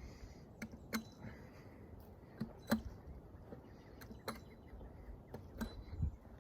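A string of irregular sharp knocks and clicks, about one to three a second, over a low rumble.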